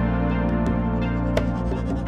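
Background music: held notes over a steady low bass, with a single short hit about two-thirds of the way through.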